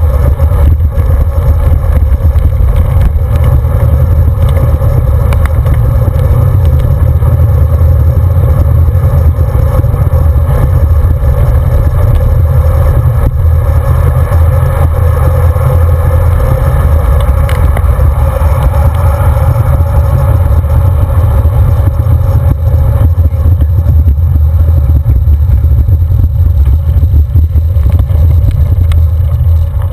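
Loud, steady wind rumble on a handlebar-mounted camera's microphone, mixed with tyre and road noise, as a road bike rides at speed.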